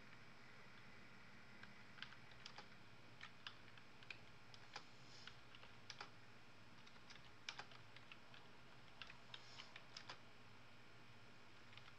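Faint, irregular typing on a computer keyboard: scattered keystroke clicks starting about two seconds in and stopping about ten seconds in, with one more near the end, over a faint steady room hum.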